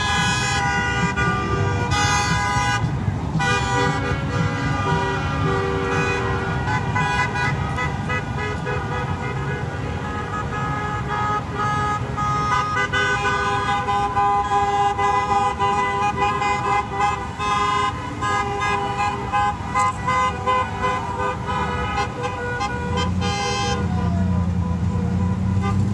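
Many vehicle horns honking at once, held and overlapping, over the rumble of traffic; a louder engine rumble comes in near the end.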